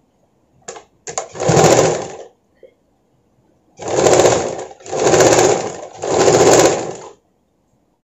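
Stitch Queen electric sewing machine stitching a seam in short bursts: one burst of about a second, then after a pause three more close together, stopping near the end.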